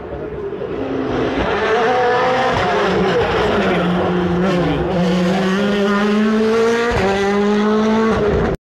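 Rally car engine approaching up the stage, getting louder over the first two seconds, its note climbing and dropping several times as it changes gear. The sound cuts off abruptly near the end.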